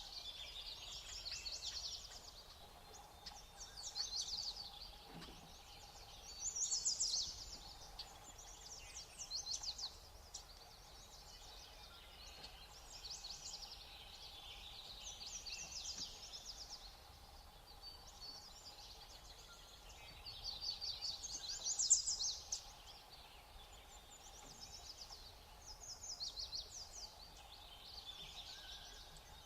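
A flock of small songbirds calling, with bursts of high, quick trilling and chattering notes every few seconds.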